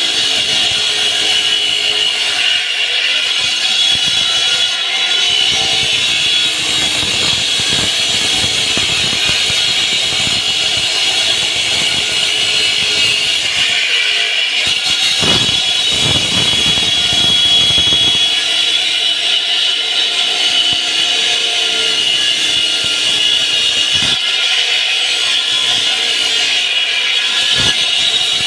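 Concrete slab cutting saw running its blade through concrete: a steady high-pitched whine over grinding noise.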